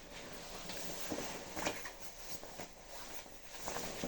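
Rustling and brushing of a jacket's fabric as it is pulled on, in irregular swishes with a few sharper handling noises.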